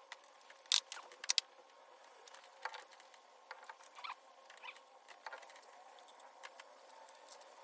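Scattered light clicks and taps of metal parts and tools being handled as a water pump is bolted onto a small-block Chevy engine, with two sharper clicks about a second in. A faint steady hum runs underneath.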